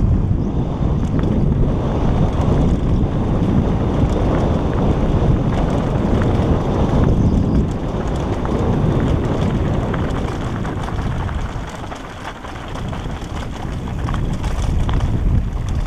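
Wind buffeting a helmet-mounted camera's microphone as a mountain bike rolls fast down a gravel track, with light clicks and rattles from the tyres and bike over loose stones. The rush dies down for a moment about three-quarters of the way through.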